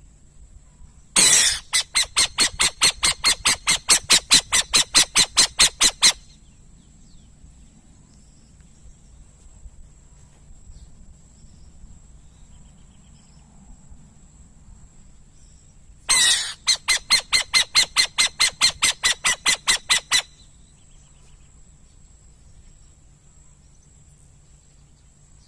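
Burrowing owl calling in two bouts of rapid, harsh repeated notes, about five a second, each bout lasting four to five seconds: the first starts about a second in, the second about two-thirds of the way through.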